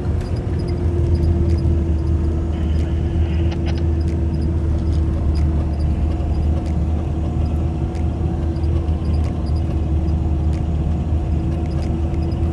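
Off-road vehicle driving on a snowy trail: a steady engine and drivetrain drone with scattered light clicks and rattles.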